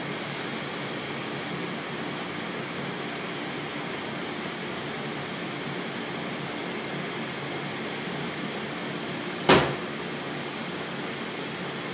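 Steady even whooshing noise like a fan running, with a brief hiss at the start as liquid goes into the hot frying pan. One sharp knock about three-quarters of the way through.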